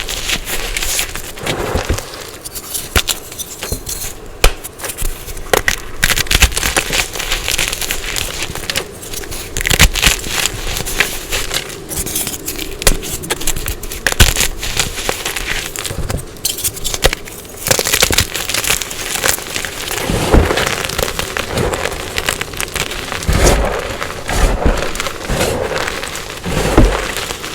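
Dyed gym chalk being crushed and crumbled close to the microphone: a dense, irregular run of crunching crackles with frequent sharper snaps.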